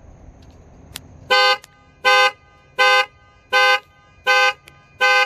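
Stock 2015 Ford Explorer horn sounding six short, evenly spaced blasts, about one every three-quarters of a second, starting a little over a second in; pretty loud.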